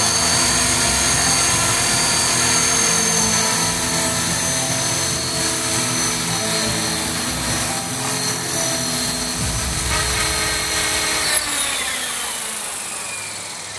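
T-REX 450 electric RC helicopter hovering: the motor, gears and spinning rotor give a steady high whine. A little past eleven seconds the motor cuts off and the rotor winds down with a whine falling in pitch.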